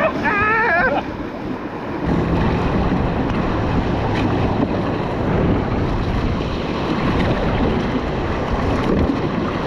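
River water rushing around a raft, with wind buffeting the GoPro microphone. The low rumble jumps up about two seconds in and holds steady.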